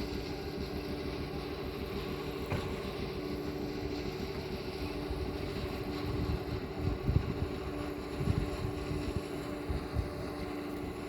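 Steady low motor hum, with wind gusting on the microphone in the second half.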